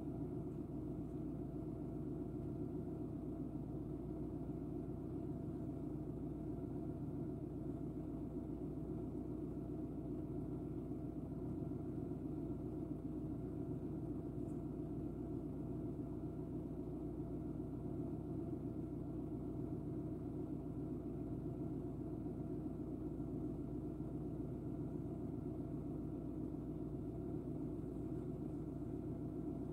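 Steady low rumble with a faint constant hum, unchanging throughout, with no calls, splashes or other distinct sounds.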